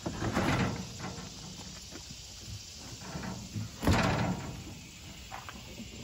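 Sheet-metal cabinet of a Samsung front-loading washing machine being pushed and shifted by hand on a pickup's tailgate: two brief bumps and scrapes, about half a second in and again about four seconds in.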